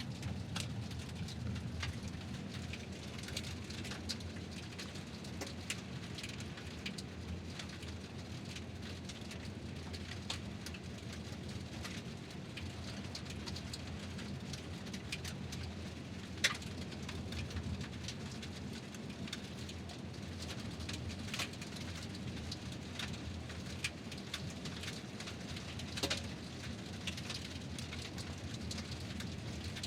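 Vehicle driving slowly on gravel: tyres crunching over loose stones above a steady low rumble, with many small crackles and a few louder pops of stones, one of them about halfway through.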